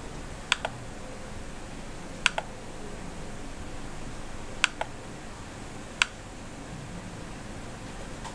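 Computer mouse clicking: three quick double clicks and a single click a few seconds apart, over a steady low hiss.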